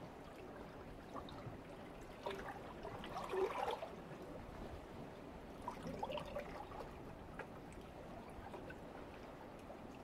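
Calm sea water lapping and gurgling against shore rocks over a steady faint wash. There are two brief spells of splashing and trickling, about two to four seconds in (the loudest) and again about six seconds in.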